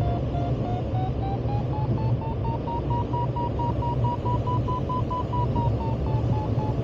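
A glider variometer beeps in rapid short tones. Its pitch rises slowly, then eases back a little, the sign of the DG1000 climbing in Föhn lift. Under it runs a steady rush of airflow over the cockpit.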